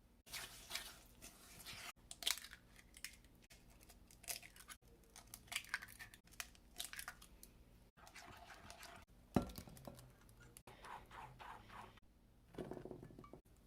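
A series of short, separately cut kitchen preparation sounds of banana bread batter being made: scraping, stirring and crinkling, each lasting about a second or two. A single sharp knock comes about nine seconds in.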